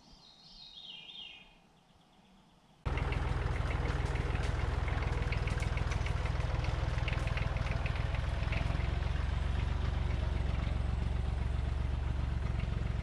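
A bird's short descending run of chirps, then, about three seconds in, a sudden start of a Massey Ferguson tractor's engine running steadily with a low drone, birds chirping faintly over it.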